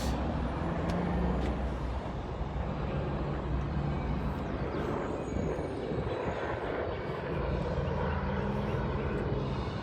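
A steady low engine drone over outdoor background noise.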